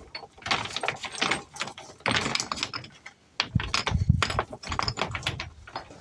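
Rough stones being shifted and set by gloved hands on top of a stone wall, clacking and scraping against each other in irregular clusters, with a couple of dull thuds about four seconds in.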